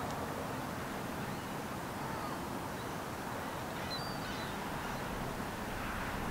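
Steady outdoor background noise of wind and distant rumble, with a few faint, short bird calls about two and four seconds in.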